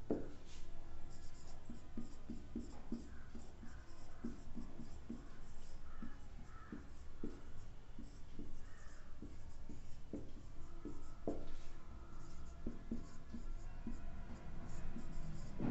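Marker writing on a whiteboard: a run of short scratching strokes and taps, with brief squeaks now and then.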